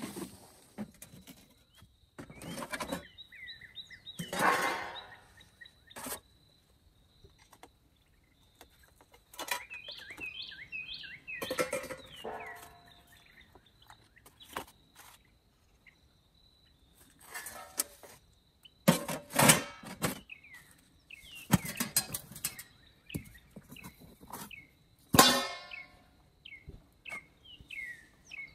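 Metal camp-oven lids and a metal plate being handled: a run of separate clanks and knocks, the loudest about two-thirds of the way through. Small birds chirp between them.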